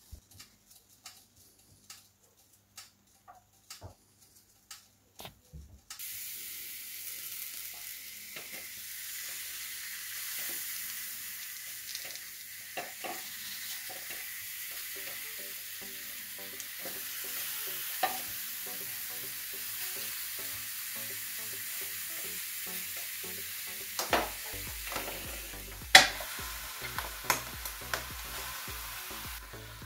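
A few light clicks and taps, then from about six seconds in a steady sizzle of bell peppers frying on the hot plates of a Tefal OptiGrill contact grill, with occasional clicks and knocks and one sharp click near the end.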